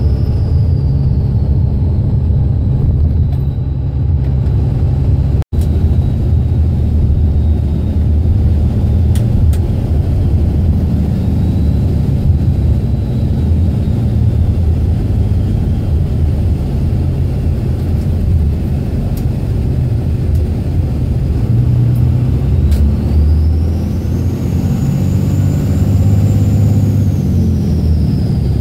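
24-valve Cummins diesel in a Dodge Ram pickup, heard from inside the cab while driving: a steady low engine drone with road noise. A high whistle rises and then falls near the end, and the sound drops out for an instant about five seconds in.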